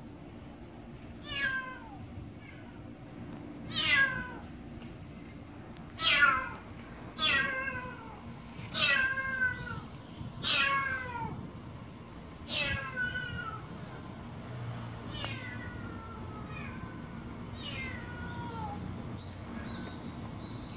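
Black-and-white stray cat meowing over and over, about a dozen calls that each fall in pitch. They are loudest in the middle and grow fainter toward the end.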